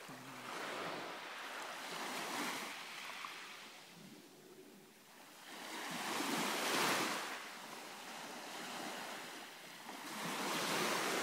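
Small waves washing onto a beach, swelling and fading three times, the loudest about six to seven seconds in.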